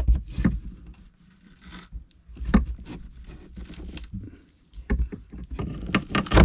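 Irregular knocks, thumps and scrapes of a wall-mounted bedside panel being pried and worked at by hand, with the loudest knocks near the end.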